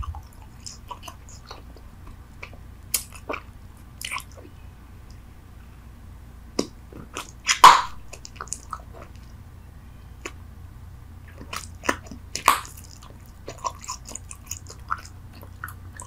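Bubble gum being chewed close to the microphone: irregular wet smacks and clicks of the mouth and gum, with one much louder smack a little past halfway.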